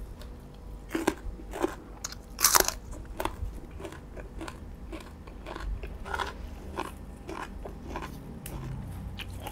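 Raw bitter gourd (bitter melon) being bitten and chewed close to the microphone: several sharp crunches in the first few seconds, then quieter chewing.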